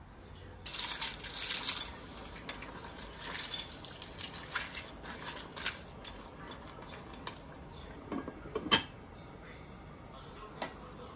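Clams poured into a pot of simmering tofu soup, their shells clattering for about a second; then shells clicking as the soup is stirred with a wooden spoon. About three-quarters of the way through, the pot's heavy lid is set down with a single sharp clank.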